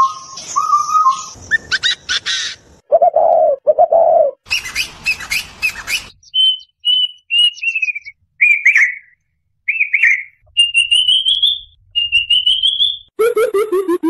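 A string of cuckoo calls cut one after another: two-note whistled calls and a pair of lower hoots, a burst of dense chirping, then a plaintive cuckoo's clear whistles falling in pitch followed by two runs that rise in pitch. Near the end a greater coucal starts a deep, evenly repeated hooting.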